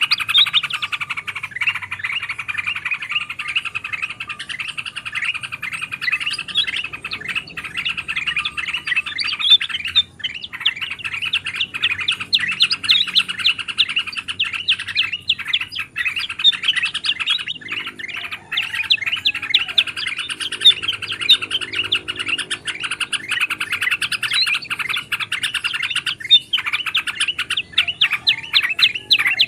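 A flock of bulbuls chattering busily in a bird-lure recording, with yellow-vented bulbul calls mixed with other bulbul calls. The short, rapid notes run on without a break, thinning briefly twice.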